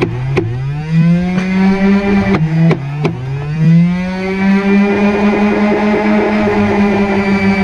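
NERF Rival Khaos blaster's motorized flywheels whining, rising in pitch as they spin up about a second in and again near four seconds, then holding a steady whine. A few sharp clicks in the first three seconds.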